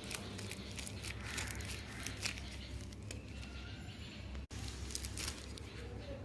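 Light clicks and rustling, like small materials being handled, over a steady low hum, with a brief dropout about four and a half seconds in.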